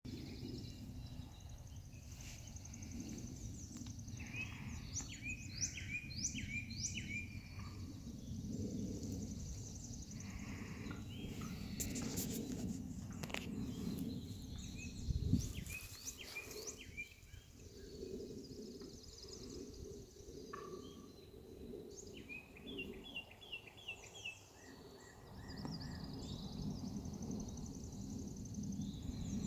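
Woodland songbirds chirping and trilling over a low rumble, with one sharp thump about halfway through.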